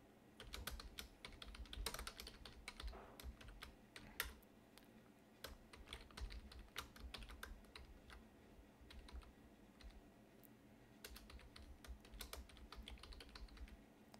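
Faint typing on a computer keyboard: quick runs of key clicks, thinning out a little past halfway before picking up again.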